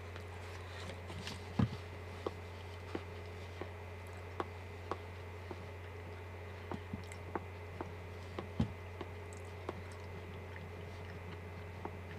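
A man chewing and biting soft food, potato, close to the microphone: scattered small mouth clicks over a steady low hum. Two dull thumps come about one and a half seconds in and again about eight and a half seconds in.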